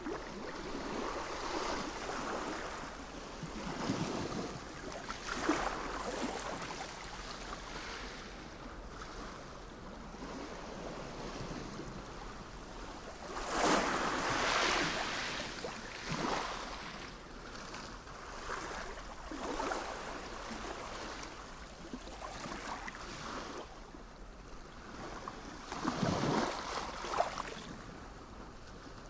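Sea waves washing in, in irregular surges every few seconds, the biggest about halfway through and another near the end.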